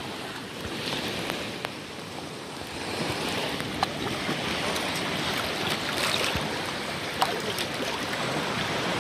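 Shallow sea surf washing in, with water sloshing around wading legs: a steady rushing that swells a few times.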